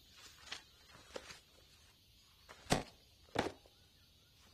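Soft rustles of an old diary's paper pages being turned, then two louder knocks about two-thirds of a second apart.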